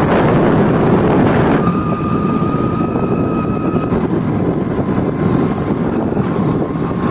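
Loud wind rushing over the microphone together with engine and road noise from a vehicle travelling along a road, with a faint steady whine coming in about a second and a half in.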